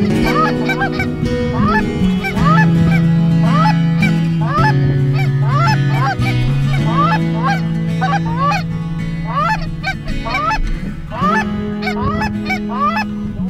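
A steady run of goose honks, each a short rising call, about one to two a second, over background music with long held low notes.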